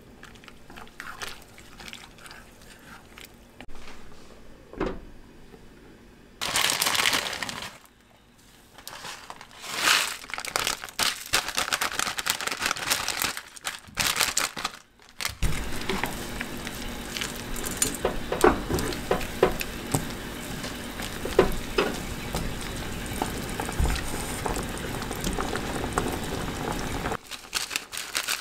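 Stovetop cooking of tteokbokki and ramen. Chopsticks click against the pot at first. A plastic instant-noodle packet crinkles loudly in bursts as it is opened and emptied. From about halfway, the red broth bubbles steadily at a boil with small pops and clicks.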